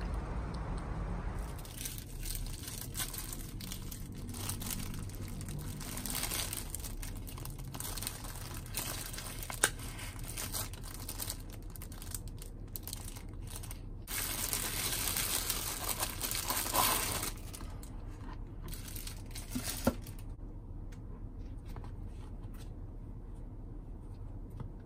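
A plastic bread bag crinkling and rustling as hands handle it and open it to take out a slice, loudest about two-thirds of the way through, with a couple of sharp clicks. The crinkling stops a few seconds before the end.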